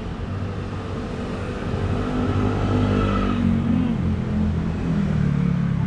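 A road vehicle's engine running close by on the street, its low steady note growing louder about two seconds in.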